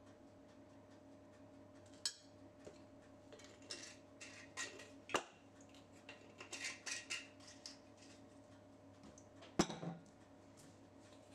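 Metal spoon clinking and scraping against a ceramic bowl while mixing cut vegetables with oil and spices, in scattered strokes, with the sharpest clink near the end.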